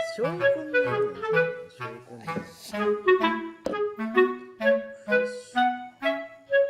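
Background music: a bouncy tune of short pitched notes over a lower bass line, with a brief gliding sound just after the start.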